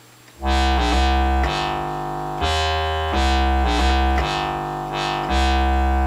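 Doepfer Dark Energy single-oscillator analog synthesizer playing a deep bass line of about eight sustained notes, starting about half a second in. Each note opens bright and quickly darkens.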